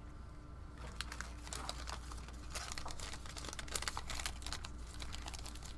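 Crinkling of a foil trading-card pack wrapper being handled and opened, a rapid irregular crackle that starts about a second in, over a low steady hum.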